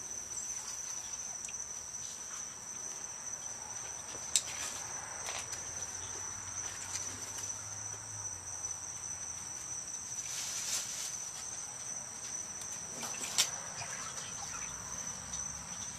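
Steady high-pitched insect trilling, with two brief sharp clicks, one about four seconds in and one near the end.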